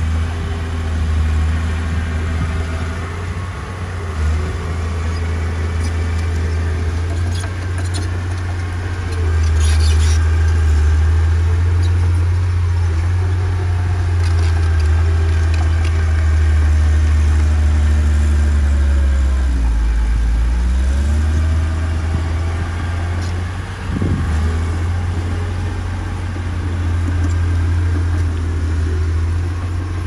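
Diesel engine of heavy earthmoving machinery running steadily, with a strong low hum. About twenty seconds in, its note sags and then climbs back up.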